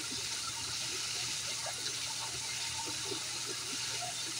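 Steady rush of water running into a pond, with small gurgles and a faint low hum underneath.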